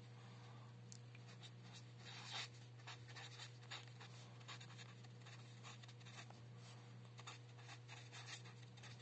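Faint scratchy strokes of a felt-tip marker writing on a white surface, a quick irregular run of short pen strokes, over a steady low hum.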